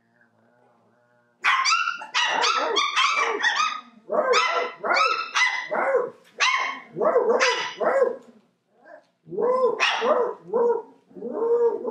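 Three-week-old puppies barking and yapping in rapid, high-pitched volleys, several calls a second, starting about a second and a half in and going on with short pauses.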